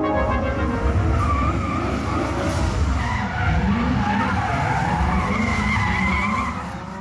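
Drift cars sliding on asphalt: engines running at high revs while the tyres squeal in long, wavering tones.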